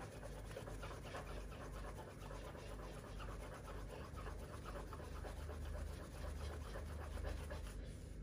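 A small metal valve part from a PCP air rifle being rubbed quickly back and forth on cloth to polish its face smooth and shiny: a faint, steady scratching of many short, even strokes.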